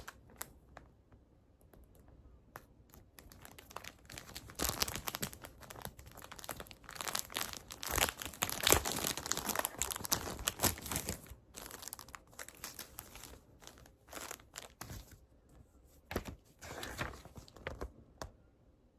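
Irregular crinkling and rustling as something is handled close by, with small clicks; the rustling is busiest in the middle and thins out near the end.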